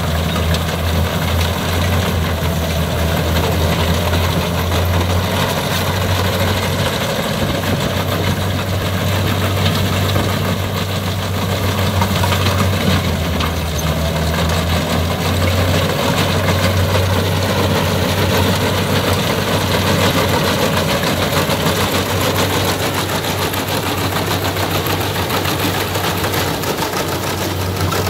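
Kubota combine harvester running steadily while cutting and threshing flattened rice: an even low engine drone with the whir and rattle of the header and threshing works over it.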